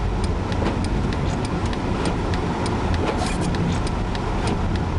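Car driving through heavy snow, heard from inside the cabin: a steady rumble of engine and road noise with frequent small, irregular ticks.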